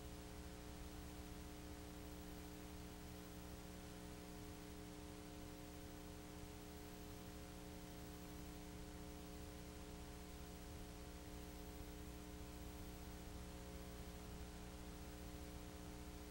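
Low, steady electrical hum with many overtones over a constant hiss, unchanging throughout; no sound of the motorcycle itself.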